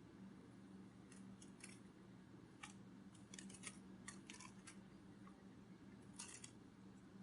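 Near silence: faint, irregular soft clicks, some in quick clusters of three or four, over a low steady hum.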